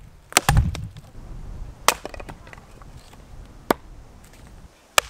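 A small Gränsfors Bruk Wildlife hatchet chopping into wood: four or five sharp, separate blows, a second or two apart, with two strikes close together near the start.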